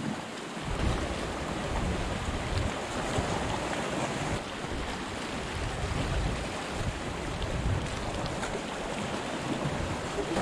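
Sea surf washing on a rocky shore, with wind buffeting the microphone in uneven low rumbles.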